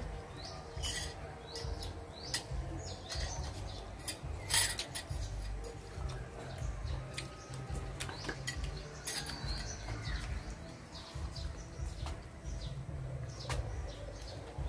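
Spoon and fork clicking and tapping against a plate during eating, in scattered short knocks.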